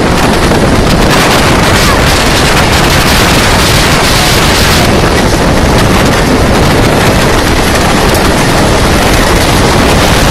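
Loud, steady wind rushing over the microphone, with a vehicle's running noise mixed in underneath.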